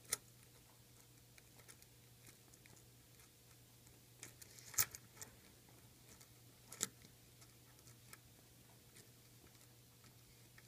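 A few sharp clicks from a stainless steel automatic wristwatch being handled: one right at the start, a cluster a little before the middle and one more about two seconds later, with faint small ticks between and a steady low hum underneath.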